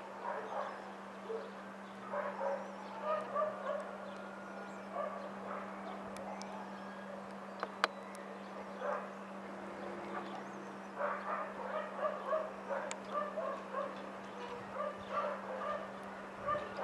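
A dog barking in intermittent bursts of short yaps over a steady low hum, with a single sharp click about eight seconds in.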